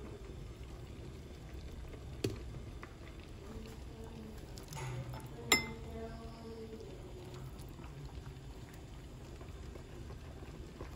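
Two sharp clinks of kitchenware over a low, steady background hum. The second clink, about five and a half seconds in, is the louder and rings briefly.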